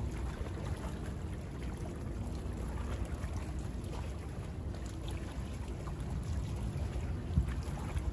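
Small bay waves lapping and splashing, over a steady low rumble, with one slightly louder splash about seven seconds in.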